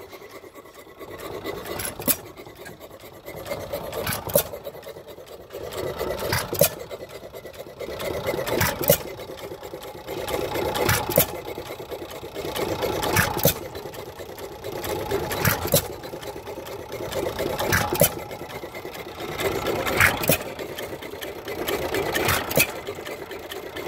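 Air-cooled Domestic hit-and-miss stationary gas engine running. It fires with a sharp bang about every two and a quarter seconds and coasts on its flywheels between the firings, with mechanical clatter swelling and fading in between.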